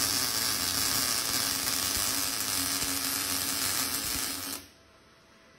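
MIG welding arc from an R-Tech MIG 181 inverter welder running a bead on 1 mm mild steel with 0.8 mm wire at 4.4 m/min and 16.4 V. It runs steadily with an even crackle, then stops suddenly about four and a half seconds in as the trigger is released.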